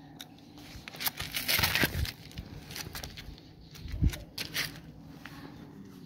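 Crackling and crinkling from a burning polystyrene foam food box, loudest in a hissing rush about a second and a half in, with scattered clicks and a dull thump about four seconds in.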